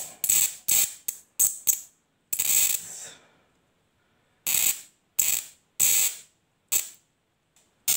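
High-voltage spark arcs from a TV flyback transformer driven by a single TIP3055 transistor on 12 V, crackling in a string of short bursts each time the wire is brought to the output lead. About ten bursts, with a pause of about a second and a half near the middle.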